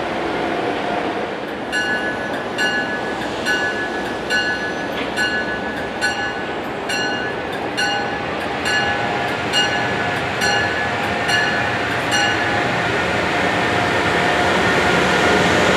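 Amtrak Acela Express trainset pulling slowly into a station, its bell ringing about once a second from about two seconds in until about twelve seconds in, over the train's steady running noise. The running noise grows louder near the end as the power car comes level.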